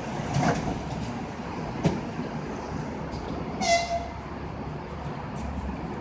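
ED4M electric train standing at a station platform, with the steady hum of its equipment and the station around it. A sharp click comes near two seconds in, and a brief high-pitched toot just before four seconds.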